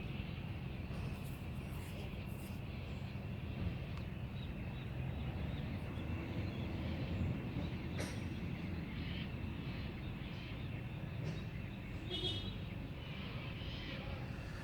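Toyota Supra turbo engine idling through an HKS straight-through exhaust, a steady deep rumble. The engine has a miss on one cylinder that new plugs, leads and coils have not cured; the owner suspects a blocked injector.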